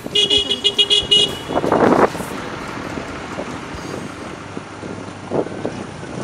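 A wheel loader passing close by sounds a rapid run of high-pitched beeps for about a second. About two seconds in there is a brief, louder burst of noise, and then a steady rumble of engine and road noise.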